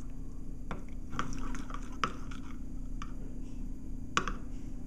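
Metal spoon stirring thick peanut butter with water and corn syrup in a glass measuring cup: wet squishing with a few light clinks of the spoon against the glass. The peanut butter is not blending smoothly into the liquid.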